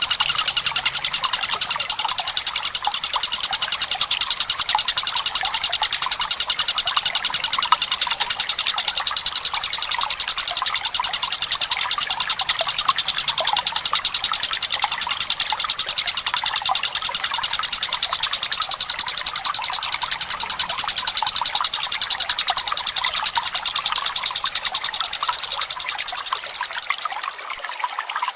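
Tengkek Buto kingfisher giving a long, fast rattling trill that runs on without a break, over steadily trickling water.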